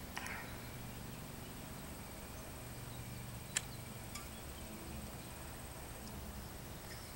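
Faint outdoor background with a steady, high-pitched insect trill, broken by a few light clicks, the sharpest about three and a half seconds in.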